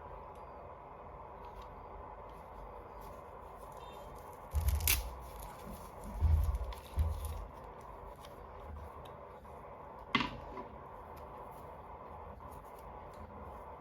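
Hands handling toy packaging during an unboxing: scattered rustles, a sharp crackle about five seconds in, a few soft knocks over the next two seconds and a short click about ten seconds in.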